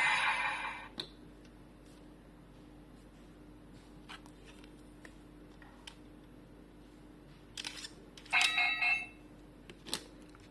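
Plastic clicks from handling a Bandai DX Kamen Rider toy device, with the tail of a louder electronic sound cutting off about a second in. Near the end the toy's speaker gives a short electronic beep sequence, followed by a sharp click.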